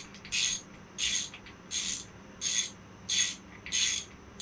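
Ratchet wrench being worked in short back-strokes, its pawl clicking in a quick rasp about every 0.7 s, about seven strokes, while snugging down the main bearing cap bolts on a Ford 400 crankshaft.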